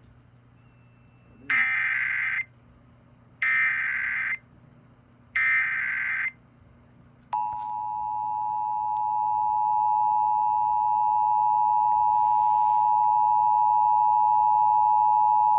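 Emergency Alert System activation: three short, screechy digital header bursts about a second each, followed by the EAS two-tone attention signal, a steady dual tone just below 1 kHz held for about eight seconds and cut off sharply. The sequence signals the start of an emergency alert broadcast.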